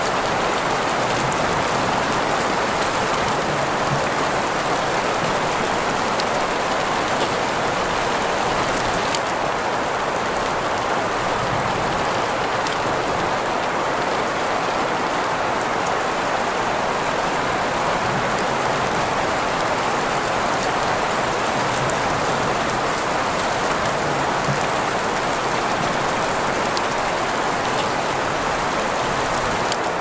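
Steady rain with faint scattered drop ticks, blended with a constant green-noise hiss centred in the middle range.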